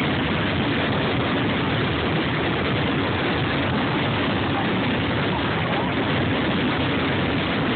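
Aerial fireworks barrage: many shell bursts overlapping so closely that they merge into one continuous, unbroken rumble and crackle, steady in loudness throughout.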